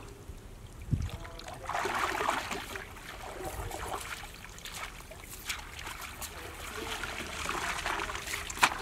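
Water sloshing and trickling as people wade waist-deep through a pond and handle a wet cast net, with a low thump about a second in and a sharp click near the end.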